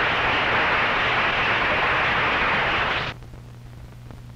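A roomful of people applauding, cut off abruptly about three seconds in, leaving a faint low hum.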